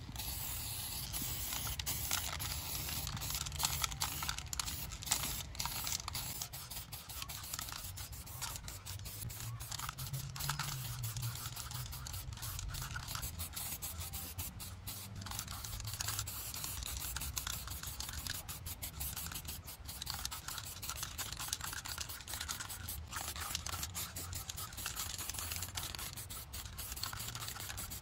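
Aerosol spray can hissing onto a sheet-metal panel, in stop-start bursts with many abrupt breaks.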